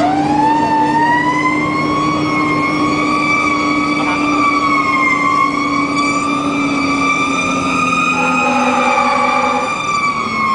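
Siren of a 1999 Pierce Saber pumper fire engine on an emergency response, heard from inside its cab: it winds up in pitch over the first second or so, then holds high with a slight slow waver, over the truck's engine running.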